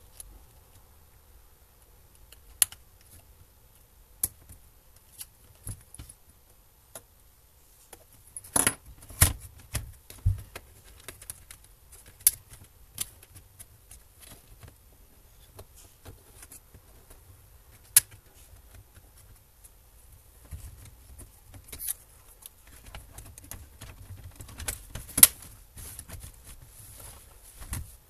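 Scattered sharp clicks, taps and light rattles of laptop parts and small tools being handled during disassembly. There is a cluster of louder knocks about nine seconds in, a single sharp click about eighteen seconds in, and another loud one near the end.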